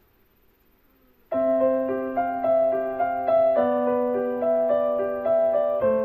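Background piano music. After a near-silent first second, a piano piece starts suddenly: a held low note under a pattern of repeating higher notes.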